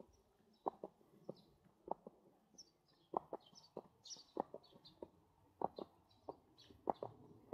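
Footsteps of people walking at a steady pace, about one and a half steps a second, with short high bird chirps scattered above them.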